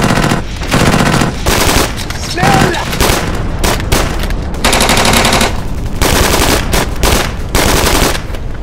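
Automatic gunfire from machine guns and submachine guns: several rapid bursts, one after another, with short breaks between them.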